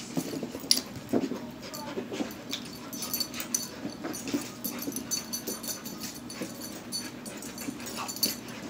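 German Shepherd puppies play-fighting, giving short, irregular whines, grunts and panting as they wrestle.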